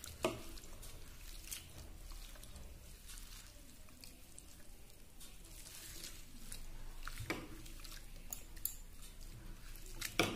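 Hands swishing and squeezing grated potato shreds in a bowl of water, with faint splashing and dripping and a few small splashes, rinsing the starch out of the shreds.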